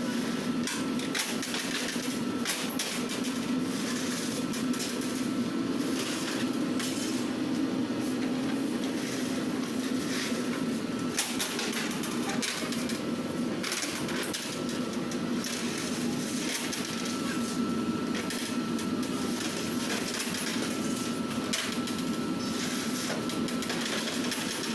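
Metal baking trays and an oven peel clanking and scraping against the decks of a bakery deck oven, in scattered knocks, over a steady low hum of the oven and bakery machinery.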